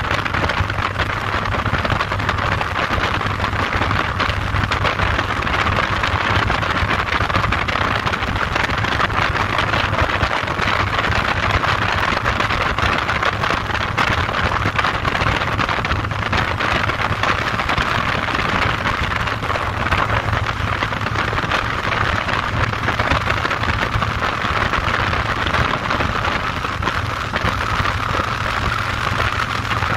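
Cruiser motorcycle engine running steadily at a constant cruising speed, mixed with an even rush of wind and tyre noise.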